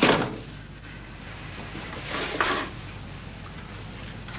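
Quiet room tone with one short, faint knock or scrape about halfway through.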